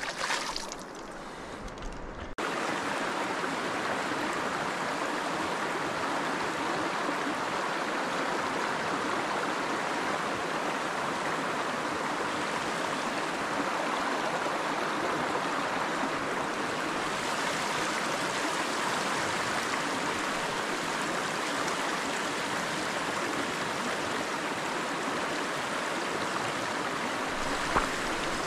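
Rushing river water, a steady even noise that cuts in abruptly about two seconds in, with a single short knock near the end.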